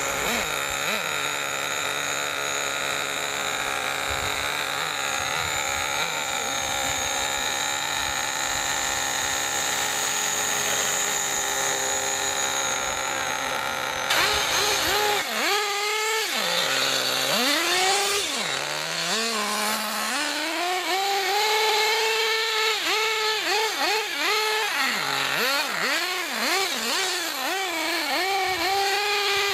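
Steady high whine of a radio-controlled model helicopter flying. About halfway through this gives way to the small two-stroke nitro (glow) engine of an RC truck revving up and down over and over as it is driven.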